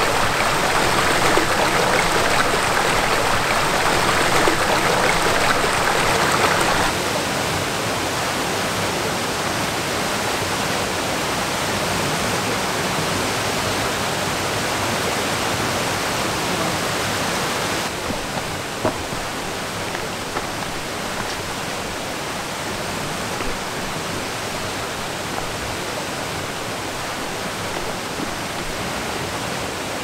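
Mountain stream water rushing over rocks, a steady hiss of flowing water. It steps down in level about seven seconds in and again about two-thirds of the way through.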